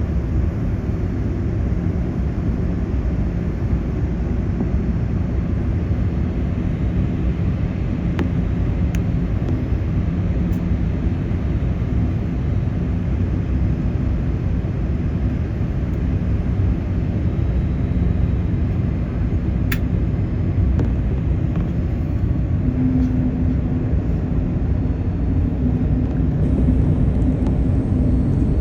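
Boeing 787 airliner's steady low cabin rumble, heard from inside the passenger cabin, with a few faint clicks.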